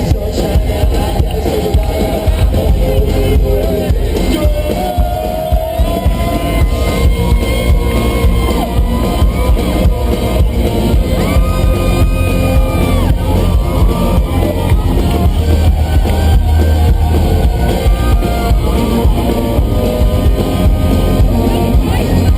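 Live country-rock band playing loudly through a concert sound system, with a sung vocal line and crowd noise under it.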